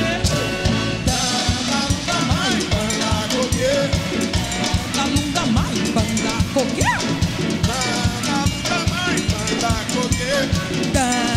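Jazz-symphony orchestra with drum kit and percussion playing an instrumental passage between sung verses, over a fast, steady drum beat.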